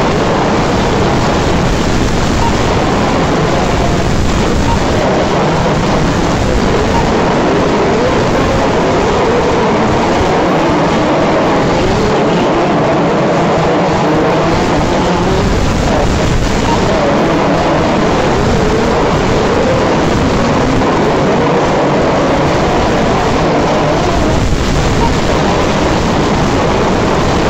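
4WD radio-controlled off-road racing cars running on a dirt track: a steady din of several motors whining together, their pitch wavering up and down as the cars accelerate and brake.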